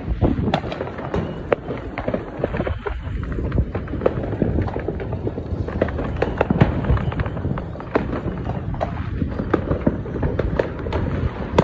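Neighbourhood New Year fireworks and firecrackers going off all around: a dense, unbroken run of sharp pops and bangs, several a second, over a low rumble.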